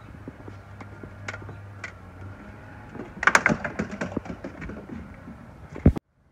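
Scattered light knocks and footsteps on a wooden deck, busiest from about three to four and a half seconds in, then cut off abruptly near the end.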